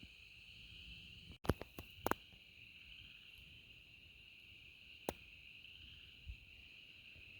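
Faint, steady insect chorus in one high, even band. A few sharp clicks come near the start, and another comes about five seconds in.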